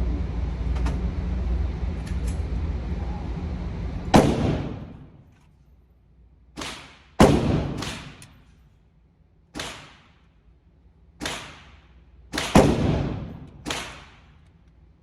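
A steady low rumble for about four seconds, then about eight pistol shots at an uneven pace on an indoor range, each with an echoing tail; some shots are fainter than others.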